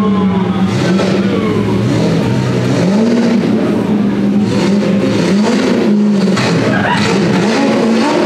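Car engines running as modified cars drive off, with short rev blips that rise and fall in pitch about three times.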